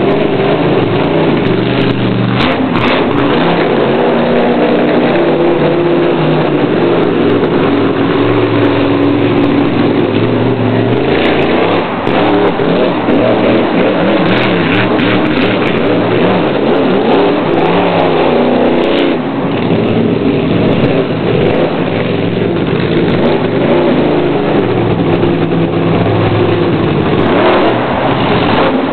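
Monster truck engine revving hard and unevenly, its pitch climbing and dropping again and again as the throttle is worked, with a few brief sharp knocks along the way.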